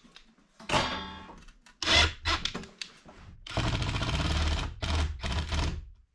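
Cordless drill driving screws through a sheet-metal vent plate into a wooden wall, in several short runs and one longer run of about two seconds past the middle.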